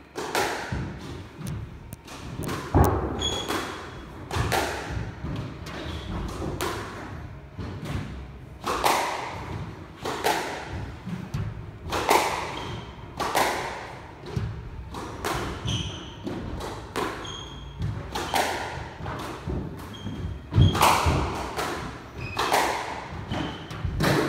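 A squash rally: the ball is struck by rackets and thuds off the court walls about once every second or two, with brief squeaks of shoes on the wooden floor between the shots.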